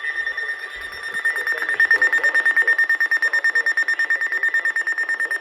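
Weather alert radio's alarm going off, a rapid pulsing electronic beep on one high tone. It gets louder about a second and a half in and keeps sounding.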